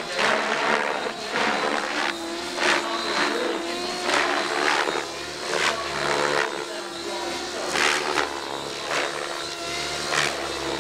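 Electric RC 3D helicopter flying aerobatics: a steady high motor and rotor whine with a wavering pitch, cut by repeated loud whooshes from the main rotor blades as they bite the air, coming irregularly about once or twice a second.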